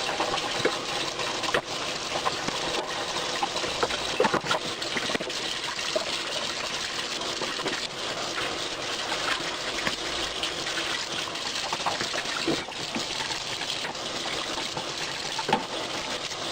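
Kitchen tap water running steadily into the sink during dishwashing, with occasional short clinks and knocks of dishes.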